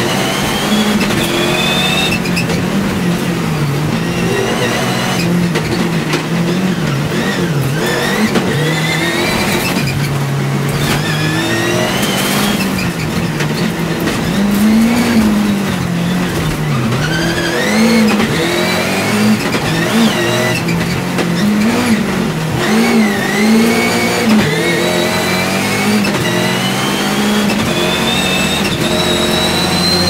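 Rallycross car's engine heard from inside the cockpit at racing speed, its pitch climbing through the revs and dropping again many times with gear changes and lifts for corners, ending in a long steady climb. Tyre and gravel noise runs underneath.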